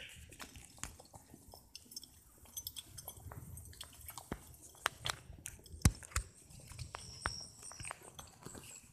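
Irregular clicks, taps and rubbing close to the microphone: handling noise from the phone being held and moved, with a few louder knocks about six seconds in.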